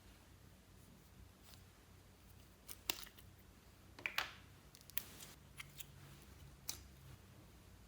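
Faint, scattered clicks and small crackles of slime being handled and mixed, about eight sharp ticks spread over a few seconds.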